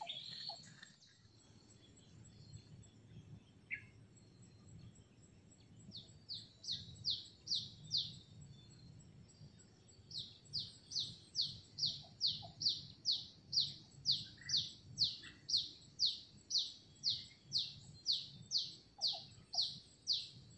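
A bird calling a fast series of short high notes, each falling in pitch, about two to three a second: a short run about six seconds in, then a long unbroken run from about ten seconds on.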